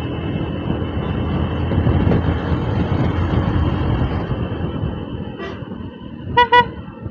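Motorcycle riding at speed, a steady rumble of engine and wind on the microphone. About six seconds in, a horn gives two short, loud beeps close together, after a fainter beep just before.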